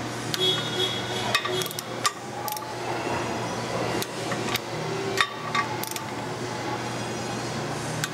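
Click-type torque wrench and socket on the clutch pressure-plate bolts: a series of sharp, irregularly spaced metallic clicks and clinks as each bolt is brought to its 23 lb-ft setting and the wrench is moved to the next bolt.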